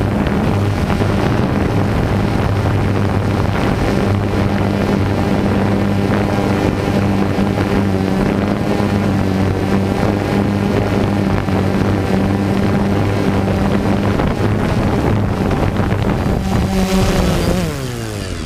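DJI Phantom 2 quadcopter's motors and propellers, heard from its onboard camera: a steady hum while it hovers low. Near the end it sets down in the grass and the motors wind down, the pitch falling.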